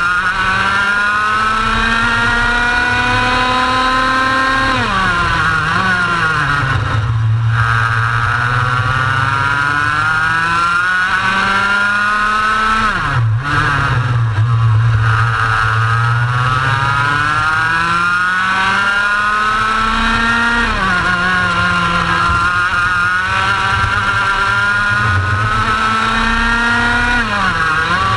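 Racing kart engine heard from onboard at race pace, its pitch climbing steadily along each straight and dropping sharply as the kart brakes for a corner, four times.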